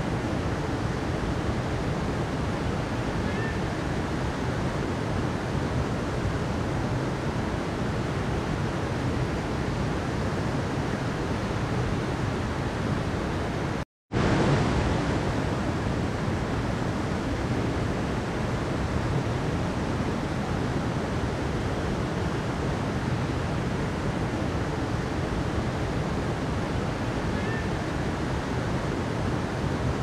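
Mountain river flowing: a steady, even rush of water. About halfway through, the sound cuts out completely for a moment, then comes back.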